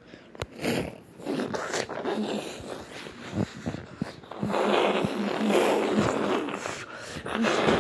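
Slatted window blinds rattling and clacking in irregular bouts of sharp clicks and scraping, with the loudest stretch from about halfway in to near the end, as a pet climbs about in them.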